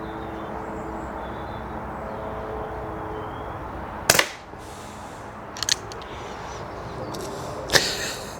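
Snowpeak PP20 .177 pre-charged pneumatic air pistol firing a single sharp shot about four seconds in, over a steady background hum. Small clicks follow, and there is another sharp click near the end.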